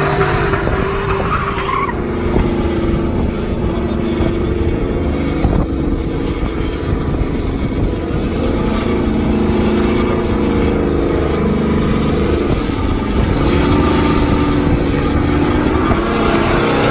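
Pickup truck engines revving hard, the pitch rising and falling, while the rear tyres spin and squeal against the asphalt in smoky burnouts and donuts.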